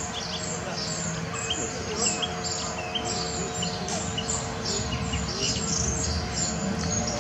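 Asian small-clawed otters giving many short, high-pitched chirps as the group crowds and jostles together.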